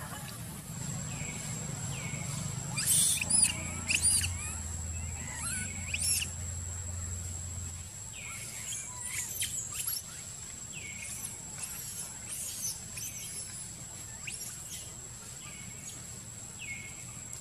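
Young macaque repeatedly giving short high-pitched squeals, each sweeping upward, loudest in the first few seconds. A steady thin high tone runs behind them.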